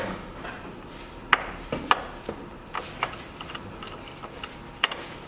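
Hand tools, a hex key and a screwdriver, clicking and tapping against the motorcycle's metal bolts and fittings: a few sharp clicks, one a little over a second in, another half a second later and one near the end, with small ticks and rubbing between.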